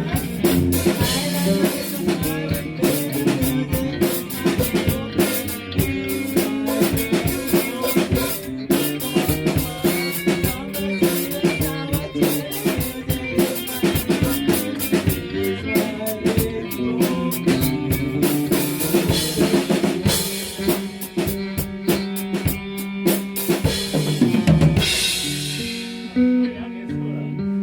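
A band playing: drum kit with snare and kick driving under guitar and bass. It ends about 25 seconds in on a final loud hit, leaving a held chord ringing.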